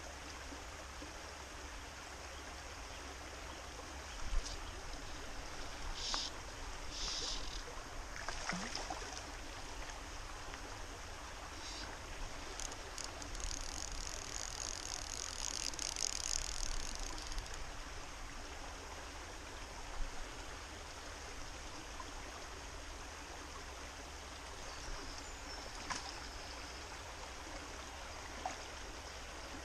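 Faint, steady rush of a small stream's water, with a few brief high-pitched sounds over it, the longest about halfway through.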